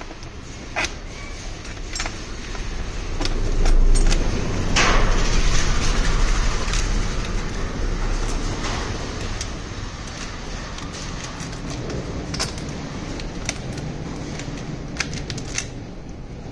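Loose metal bolts, washers and a steel mounting bracket clinking and rattling against each other inside a hard plastic storage box as hands fit the bracket. From about four to nine seconds in there is a louder low rumble and rustle of handling.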